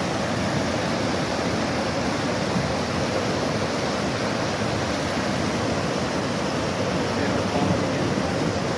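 Steady rushing of a flooded river's fast brown water overflowing its banks.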